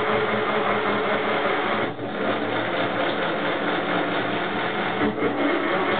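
Simba toy front-loading washing machine running, its small electric motor turning the drum with clothes inside: a steady whirring, with brief dips about two seconds in and again near the end.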